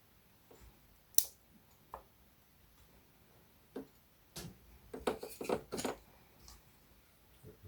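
Scattered sharp clicks and knocks. The loudest comes about a second in, and a busier run of them follows about five seconds in.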